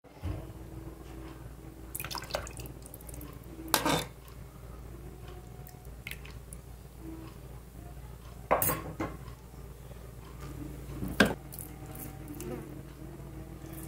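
Steel ladle scooping broth in a metal pot: broth dripping and splashing back, with about four sharp clinks of metal on metal, over a low steady hum.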